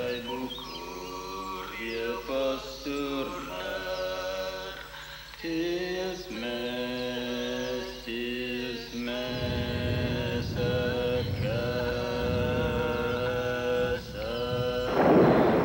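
Voices chanting in long held notes that step from pitch to pitch. A rushing noise joins about nine seconds in and swells loudly near the end.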